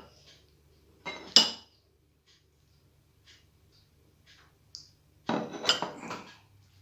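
Tableware clattering and clinking in two short bouts, about a second in and again near the end, each with a sharp ringing clink.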